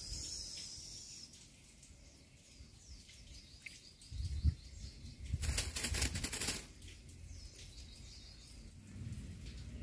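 Small birds chirping faintly and repeatedly in the background. Low thuds come about four seconds in, then a loud rustling, fluttering burst lasts just over a second around the middle.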